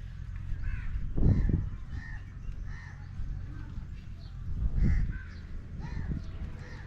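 Birds calling over and over in short separate calls, with two loud low muffled thumps, one about a second in and one near five seconds.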